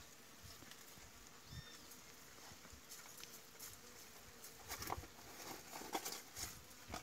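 Pregnant sow rooting and nosing through dry straw and leaves while building her nest before farrowing: scattered rustling and crackling with a few soft thuds, busiest in the second half. A short bird chirp about a second and a half in.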